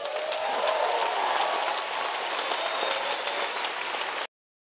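Large audience applauding, with a few voices cheering. The applause cuts off abruptly near the end.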